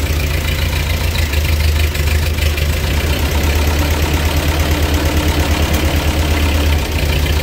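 1948 Ford 8N tractor's four-cylinder flathead engine idling steadily, with the choke pulled out a little. It is running on a carburetor that still has bugs to be worked out.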